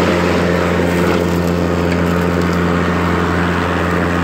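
Ryobi 40-volt 21-inch self-propelled battery lawn mower running while cutting grass: a steady hum from its motor and spinning blade.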